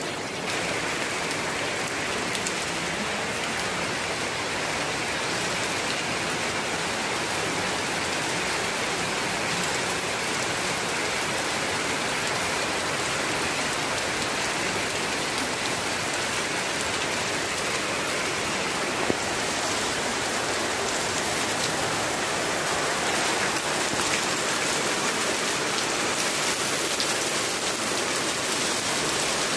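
Steady rain falling, an even wash of patter, with one sharp tap about two-thirds of the way through.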